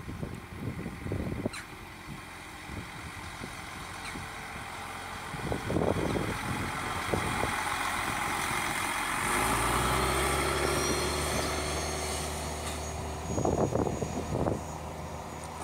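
DWA LVT/S diesel railbus passing close by: rumble of its wheels on the rails and the steady drone of its diesel engine, loudest about two-thirds of the way through, with a thin high whine as it draws away. Wind gusts thump on the microphone now and then.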